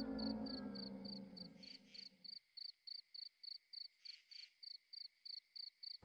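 Faint, steady chirping of a cricket, a little over three chirps a second. A low sustained drone fades away beneath it during the first two seconds.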